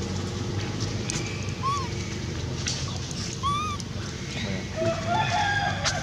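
Animal calls: two short, arched chirps a couple of seconds apart, then a longer wavering call near the end, over a low steady hum.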